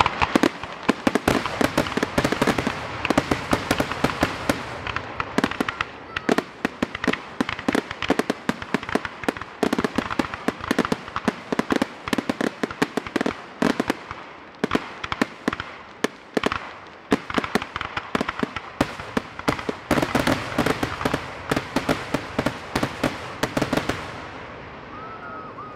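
Fireworks finale: a dense, rapid barrage of bangs and crackling shell bursts, many to the second, thinning out and dying away near the end.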